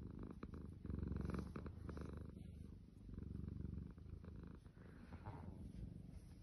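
Tabby cat purring as it is stroked, a sign of contentment; the low, pulsing purr swells and eases with each breath, loudest about a second in and again about three and a half seconds in.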